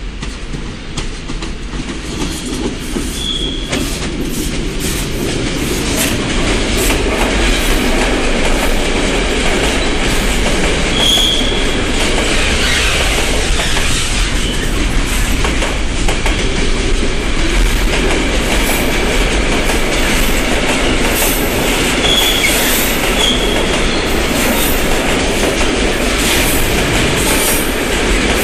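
Long container freight train passing close by: a steady rumble of wagons on the rails with many rail-joint clicks and brief high wheel squeals every several seconds. It grows louder over the first six seconds as the train draws level, then holds.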